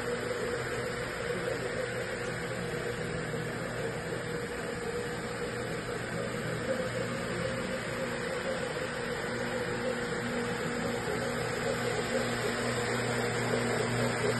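Electric rotary floor machine running steadily as its spinning pad scrubs carpet: an even motor hum and brushing noise that grows a little louder near the end.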